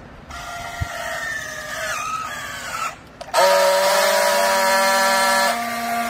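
Battery-powered handheld strapping tool working a plastic strap around a baled load of clothes: its motor whines for about two and a half seconds, the pitch sagging as the strap draws tight, then after a short pause it runs louder and steadier for about two seconds as it friction-welds the strap, and stops.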